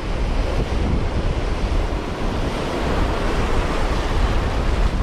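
Ocean surf breaking and washing in the shallows, with wind buffeting the microphone as a low rumble.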